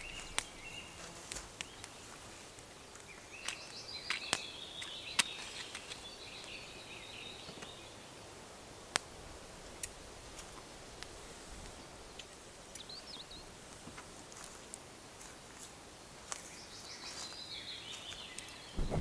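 Forest ambience with birds chirping now and then and scattered sharp clicks and taps at irregular intervals, the loudest a few seconds in.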